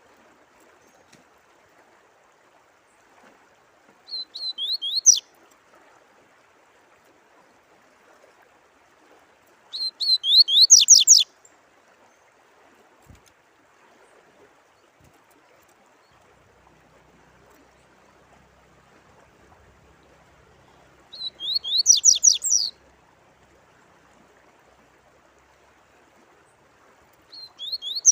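Songbird singing four short phrases a few seconds apart, each a quick run of high, sharply rising notes. Faint steady running water sounds underneath.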